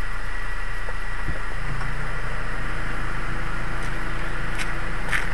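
Car engine idling close by, a steady hum with hiss, with a few sharp clicks near the end.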